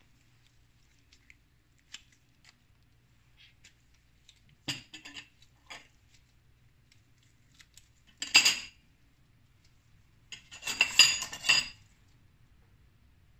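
Kitchen utensils clinking against dishes: a few light taps, a short clatter about five seconds in, then two louder stretches of ringing clinks around eight and eleven seconds.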